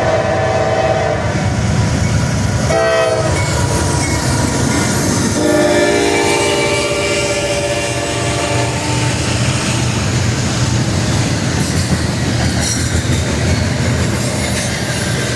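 Train locomotive's multi-tone air horn blowing in blasts: the end of a held note about a second in, a short blast about three seconds in, then a long blast of about three seconds. Underneath, the steady rumble and wheel clatter of the train rolling by.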